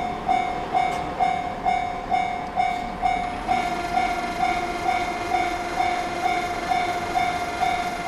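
Japanese railway level-crossing alarm ringing its electronic 'kan-kan' bell, about two strokes a second, as the barriers lower for an approaching train. More, higher tones join the ringing about halfway through.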